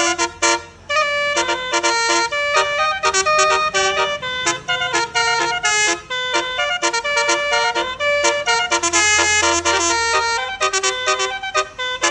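Telolet bus horn, a Basuri multi-tone horn, playing a quick tune of short and held notes.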